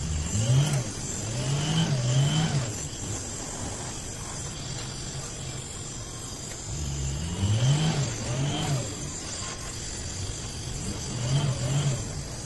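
Vehicle engines revving up and down three times as they pass: about half a second in, around seven seconds in and near the end. Under them run a steady low hum and the steady hiss of a gas welding torch flame.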